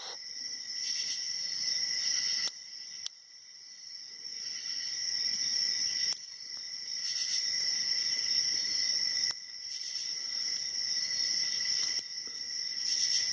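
Crickets chirping steadily in the background, with a few faint clicks from a hook pick and tension wrench working the pins of a padlock.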